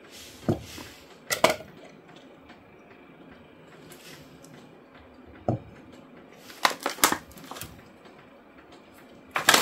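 Kitchenware being handled: a few scattered knocks and clinks, with a cluster of them about two-thirds of the way in, as a frozen block of samgyetang is tried in a cooking pot.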